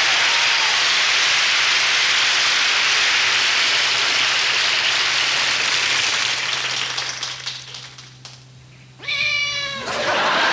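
Studio audience applause that dies away, then a single cat meow of about a second near the end.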